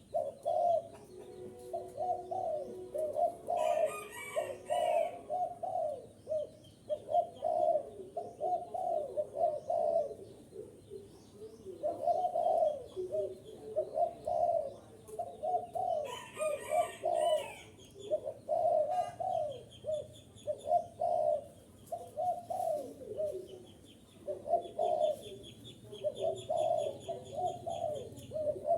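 Spotted dove cooing over and over in short repeated phrases: the territorial call used as a lure to provoke wild doves. Faint high chirping trills run behind it, and there are two brief rustling bursts, one about four seconds in and one past the middle.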